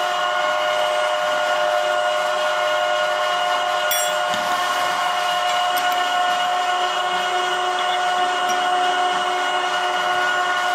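Homemade screw oil press running steadily while it presses sunflower seeds, an even machine hum with a whine of several steady tones. A single click about four seconds in.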